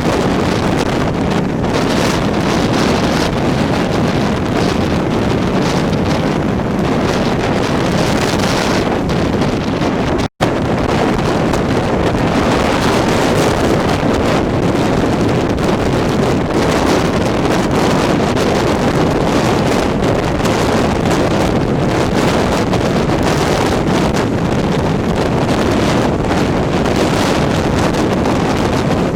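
Tropical-storm wind blowing hard and steadily, buffeting the microphone into a loud rushing roar. The sound cuts out completely for a split second about ten seconds in.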